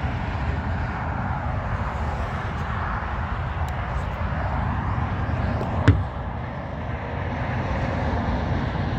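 Steady highway traffic noise, with a single sharp knock about six seconds in.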